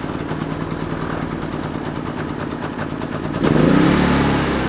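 Predator 3500 inverter generator's small single-cylinder engine running just after a cold start, its dial still on the start (choke) setting. About three and a half seconds in it gets louder and deeper as the engine speed changes.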